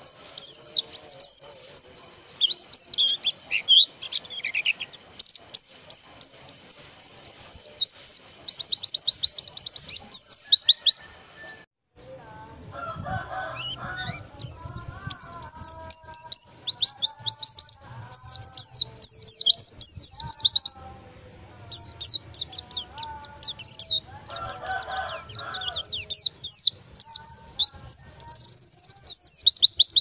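Caged white-eye (pleci) singing a fast, high chattering song of quick chirps and trills, in bursts with short pauses. After a brief break about twelve seconds in, fainter lower sounds and a low rumble sit underneath the song.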